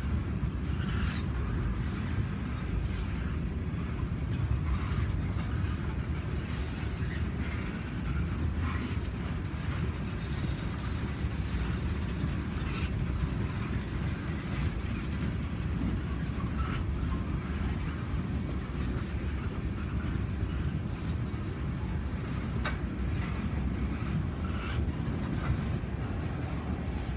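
A train rolling by: a steady low rumble, with scattered faint clicks and short squeaks from the wheels on the rails.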